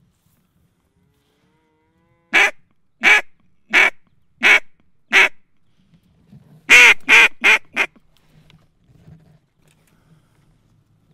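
Duck call blown in mallard hen quacks: five evenly spaced quacks, then a quicker run of four.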